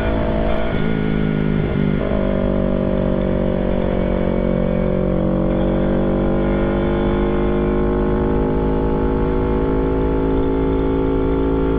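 Motorcycle engine running while riding at road speed, with steady wind rumble on the microphone. The engine note changes about two seconds in, then holds steady.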